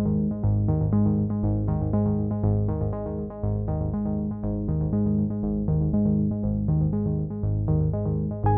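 Background music played on a synthesizer keyboard, with a steady pulse of repeated chords.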